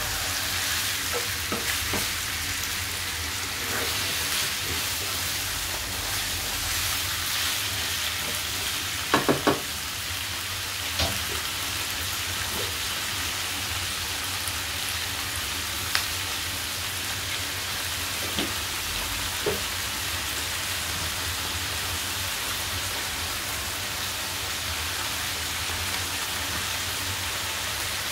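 Chicken pieces and sliced onions sizzling steadily in a granite-coated wok. A few sharp knocks of the utensil against the pan are heard, three in quick succession about nine seconds in.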